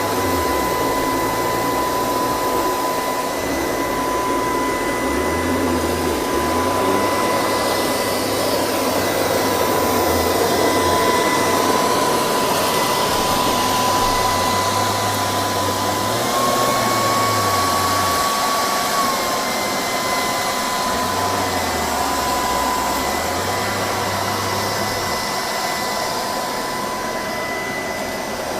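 LG R9 robot vacuum running as it cleans: a steady high whine from its suction motor over the rush of air. The whine steps up slightly in pitch for a few seconds past the middle, then settles back.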